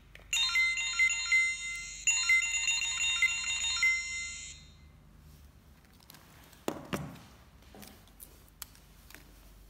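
Handheld RFID reader beeping over and over as it reads an on-metal RFID label, in two runs of electronic tones lasting about four seconds. Later a short rustle and scrape as the label is handled and peeled.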